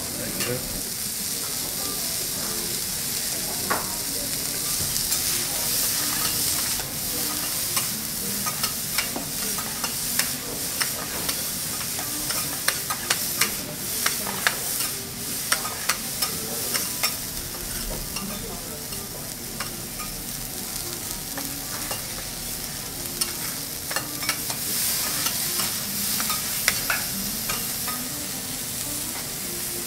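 Bean sprouts sizzling on a hot teppanyaki steel griddle, with a steady hiss. Two steel spatulas scrape and tap against the plate, giving many sharp metallic clicks that come thickest in the middle.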